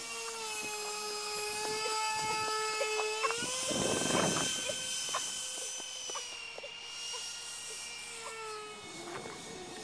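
Twin 65 mm E-flite electric ducted fans, driven by brushless motors on a foam RC jet model, whining steadily in flight. The pitch steps up a little about three seconds in, with a rush of noise around four seconds, then drops in two steps later on.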